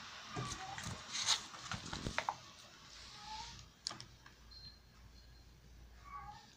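Handling noise of a phone and small plastic gadget being picked up and moved: a few sharp clicks and knocks in the first couple of seconds, then quieter rustling, with short faint high calls or chirps in the background.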